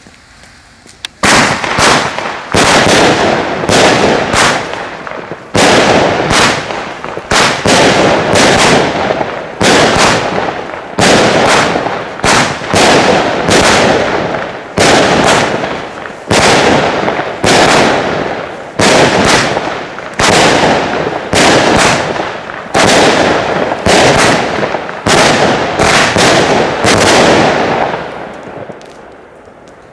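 Jorge Big Bang Wenus JW08, a 25-shot 20 mm firework cake (battery), firing its shots one after another, about one loud bang a second. Each bang has a short tail, and the shots stop a couple of seconds before the end.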